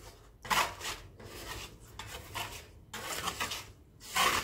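Wide metal scraper blade scraping water-soaked wallpaper off a plaster wall, in several short scraping strokes; the loudest comes near the end.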